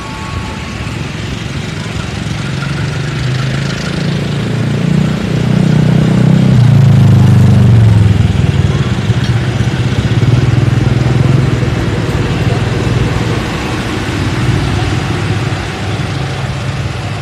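GE CC 201 diesel-electric locomotive's engine powering up as it pulls away from a standstill. The deep engine note builds over the first few seconds, peaks about six to eight seconds in, then runs steadily and eases off a little near the end.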